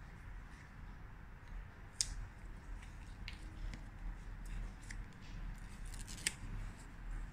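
Paper sticker sheets handled between the fingers and a sticker peeled from its backing paper: light paper crackling with scattered small crisp ticks, and two sharper snaps, one about two seconds in and one about six seconds in.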